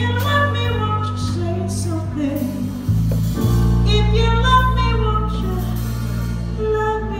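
Live band playing a slow soul ballad, electric bass holding low notes under keyboard, with a woman singing over it.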